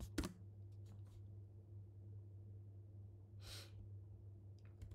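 Quiet room tone with a steady low hum, broken by a few computer keyboard keystrokes just after the start and near the end. A single short breath out comes about three and a half seconds in.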